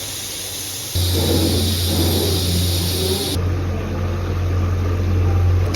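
Pot of rice and water heating on a kitchen stove on the way to the boil: a steady low hum with a hiss over it, starting suddenly about a second in.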